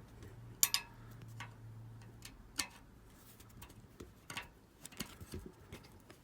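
Irregular light clicks and taps of hand work on a bicycle carrier bracket and its clips, with two sharper clicks in the first three seconds. A faint low hum stops a little over two seconds in.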